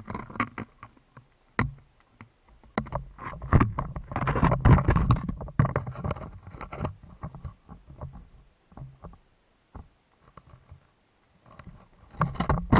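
Muffled underwater noise heard through a sealed camera housing: irregular clicks and knocks over a low rumble of moving water. It swells about four to five seconds in, dies down, then picks up again near the end.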